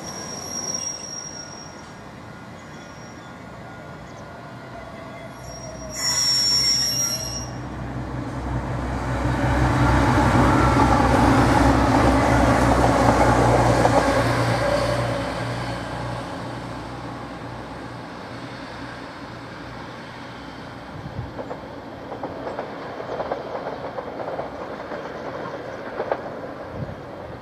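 TransPennine Express Class 185 diesel multiple unit passing at speed: its diesel engine and wheel-on-rail noise swell to a loud peak and fade away. Two brief high-pitched squeals come before it, near the start and about six seconds in, and another diesel unit is heard approaching near the end.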